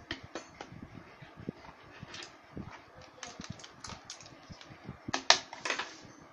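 Scattered light clicks and taps of hands handling small parts and a hand-held phone over a table, with a louder cluster of sharp clicks about five seconds in.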